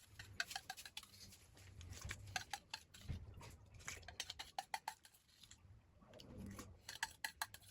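Irregular light clicks and taps of a spoon against a bowl, some with a brief ring, over a low rumble.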